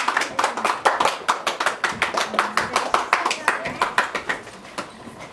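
A group of children and adults clapping in applause. The claps are dense at first, then thin out and fade about four seconds in, with voices underneath.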